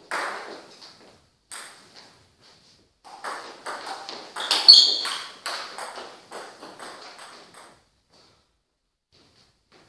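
Table tennis rally: the celluloid-type ball clicking off bats and the table in quick alternation, a few single hits at first, then a steady run of about two to three hits a second from about three seconds in to nearly eight seconds, loudest near the middle.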